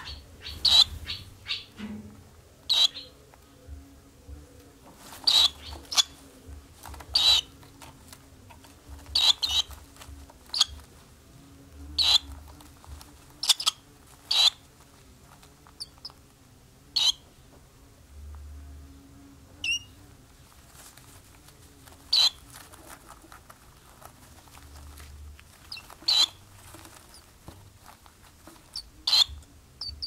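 Swallows at a nest, young and adults, giving short, sharp chirps singly or a few together at irregular intervals, with gaps of a second or two between. A faint steady low hum lies underneath.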